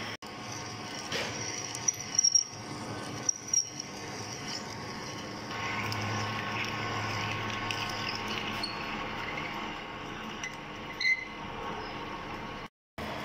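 Metal lathe cutting a steel gear blank: a large twist drill boring into the centre, then a boring bar working inside the hole, over the steady run of the lathe. A few brief high squeals of the cutter break through, twice in the first few seconds and once more near the end.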